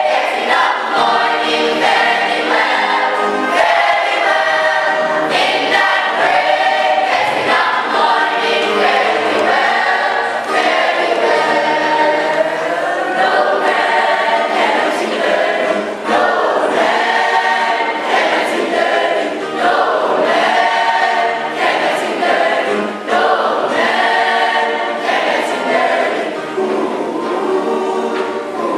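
Church choir singing, many voices together in a continuous sung melody.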